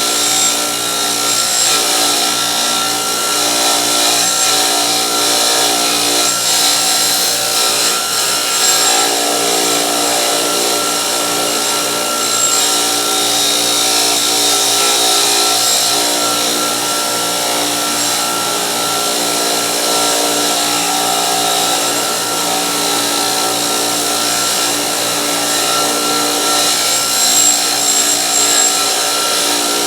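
An electric wire wheel running steadily, with steel ratchet parts held against it to brush off rust.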